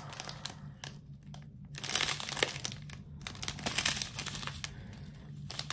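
Strip of small clear plastic zip bags of diamond painting drills crinkling as it is handled and turned over in the hands, busier in the middle.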